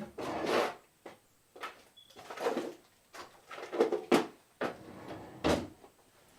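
Hands rummaging through parts and packaging in search of thermal paste: a run of short scraping and rustling handling noises with a few sharp knocks.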